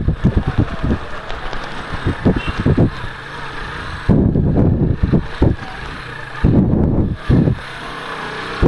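Wind noise gusting over the microphone while riding a Benelli TNT150 motorcycle, with road and engine noise underneath.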